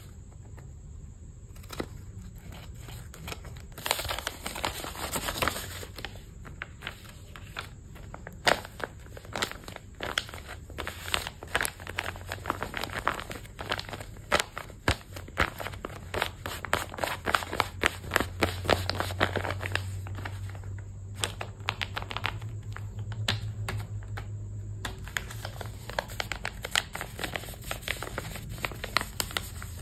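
Crinkly blind-bag packaging being handled, crumpled and torn by hand in a long run of irregular rustles and sharp little crackles. A low hum comes up underneath past the middle.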